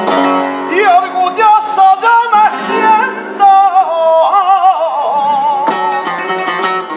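Male flamenco singer singing fandangos in a long, ornamented line that wavers and bends in pitch, accompanied by flamenco guitar. A burst of strummed chords comes in near the end.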